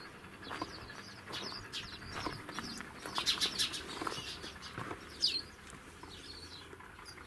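Small birds chirping: scattered short, high calls, busiest in the middle of the stretch, over faint outdoor background.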